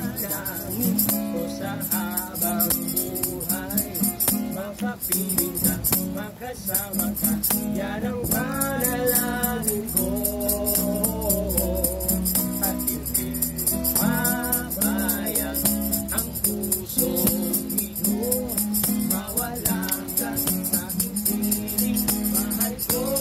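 A Tagalog love song: a voice singing a wavering melody over steady instrumental backing, with a steady beat of light high percussion.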